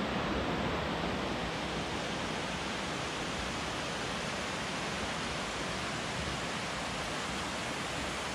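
Stream water rushing steadily over a low stone weir and shallow cascades, a constant even roar with no separate splashes.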